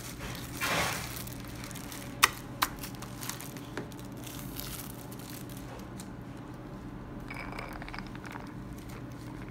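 Small handling sounds at a café table: a brief rustle, then two sharp clicks about half a second apart and a few fainter taps, over a steady low room hum.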